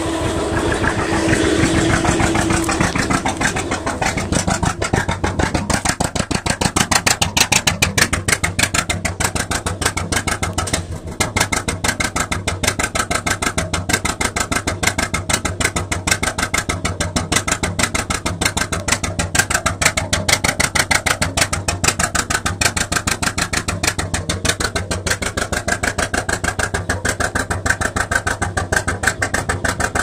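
Gardner two-cylinder engine driving the fog horn's air compressor, running steadily with an even, rapid beat.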